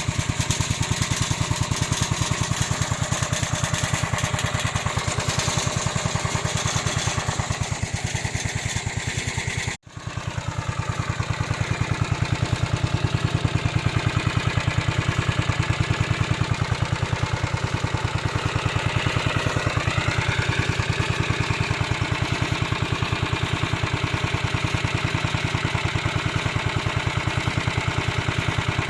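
Engine of a home-built remote-controlled lawn mower running steadily with an even, rapid pulse. There is a brief break about ten seconds in, and a slight rise and fall in pitch around twenty seconds.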